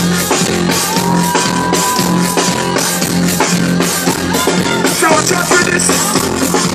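Loud live band music with a steady drum beat and heavy bass, and a held melodic line over it, with no vocal line.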